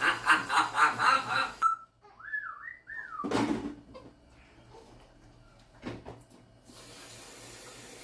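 African grey parrot calling: a loud run of rapid pulsed calls, about four a second, for a second and a half, then a warbling whistle that rises and falls twice, then one short harsh call falling in pitch.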